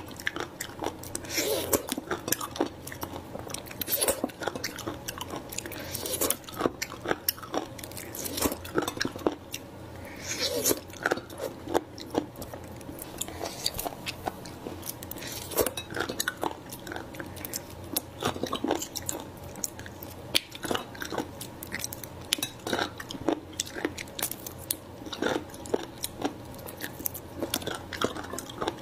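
Close-up eating of small raw shellfish: irregular sharp clicks and cracks of shells being bitten and handled, shells knocking in a ceramic dish, and chewing.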